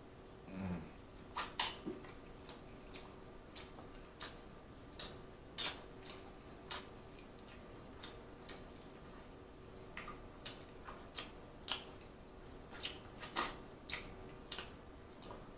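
Close-miked chewing of rotisserie chicken: wet mouth smacks and clicks, irregular, about one or two a second, with a short low hum about half a second in.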